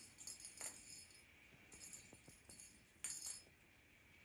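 Faint jingling of a small bell as a cat paws a plastic lattice ball toy, in three short bouts.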